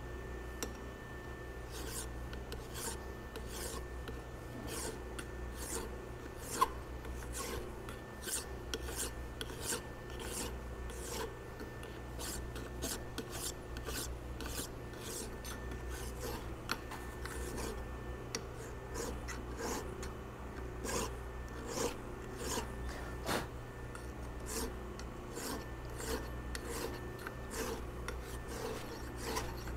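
Flat hand file scraping back and forth across a driveshaft yoke clamped in a vise, cleaning up the part in steady strokes of about two a second. There is one sharp clink about six and a half seconds in, over a steady low hum.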